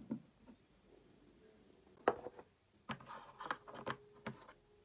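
Quiet handling sounds: a light tap at the start, then, about two seconds in, a scattered run of soft taps, clicks and rustles as small objects are moved about.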